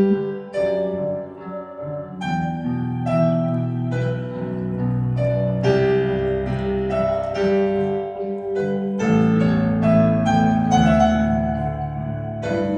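Piano playing a slow instrumental interlude alone, a melody over sustained chords, without the voice.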